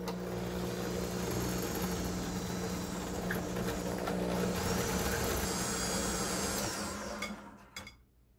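Electric stand mixer running steadily, its beaters creaming butter and sugar in a glass bowl. The motor winds down and stops near the end.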